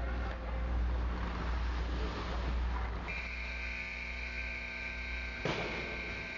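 Indoor ice rink ambience over a steady low hum; about three seconds in a steady high electronic-sounding tone starts and holds, with one sharp click about two seconds later.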